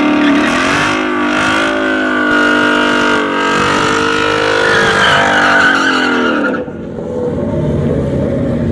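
Car at high, wavering revs, strongly pitched, cutting off abruptly about six and a half seconds in to a lower rumble.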